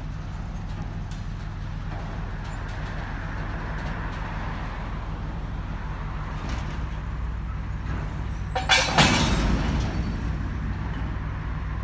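Two freight wagons coupling: their automatic couplers meet with one loud metallic clank and a short ringing about nine seconds in, over the steady low running of an M62 locomotive's two-stroke V12 diesel.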